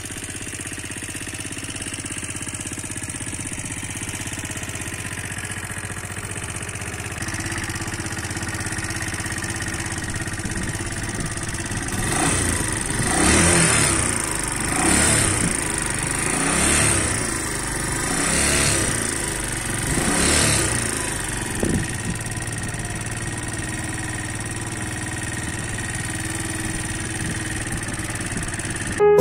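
Kawasaki Eliminator 125's single-cylinder four-stroke engine idling in neutral, then revved five times in a row about two seconds apart, each blip rising and falling, before settling back to a steady idle.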